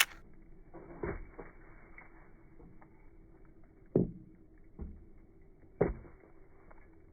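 A few short, dull knocks over a quiet background: one about a second in, the loudest about four seconds in, a softer one just after, and another just before six seconds.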